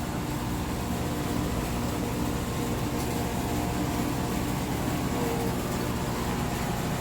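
A steady mechanical hum with several fixed tones, unchanging throughout.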